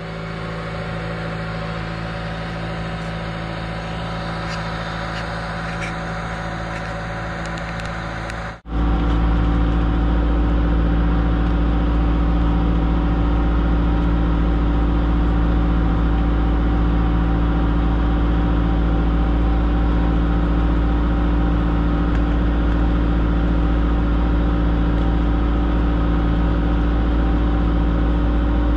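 Diesel engine of a mid-size excavator running steadily. About nine seconds in the sound jumps abruptly louder and deeper, then holds steady.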